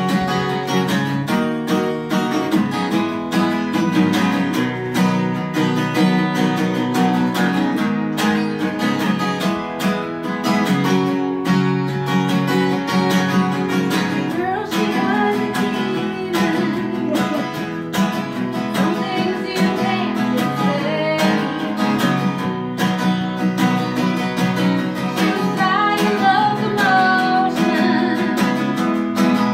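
Live music: a strummed acoustic guitar, with a woman's singing voice over it at times.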